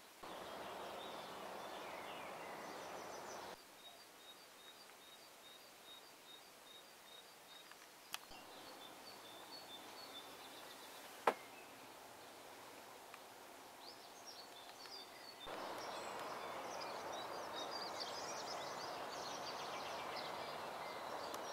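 Outdoor background hiss with small birds chirping. The hiss drops away about three and a half seconds in and comes back louder about fifteen seconds in. A single sharp click comes about eleven seconds in.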